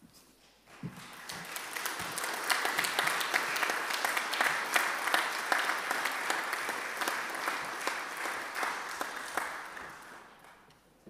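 Congregation applauding, starting about a second in, building quickly, then fading out near the end.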